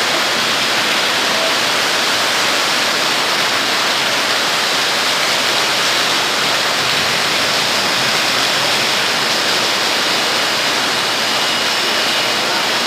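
Steady rush of water falling into the building through a roof torn off by a hurricane.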